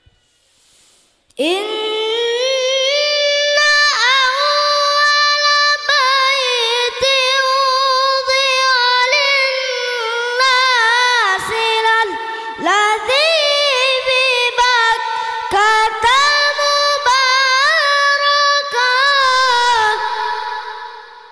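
A child's voice reciting the Quran in the melodic tilawah style: long drawn-out phrases with wavering, gliding ornaments, starting about a second and a half in after a short pause and fading out near the end.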